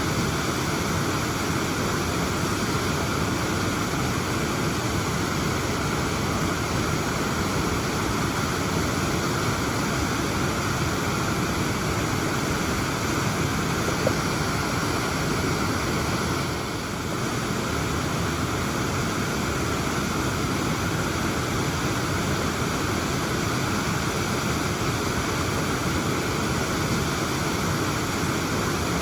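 Waterfall: a steady, even rush of falling water, with one small click about halfway through.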